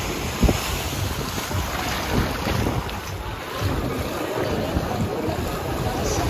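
Wind buffeting the microphone in uneven low gusts, over the hiss of surf on a beach. A single bump about half a second in.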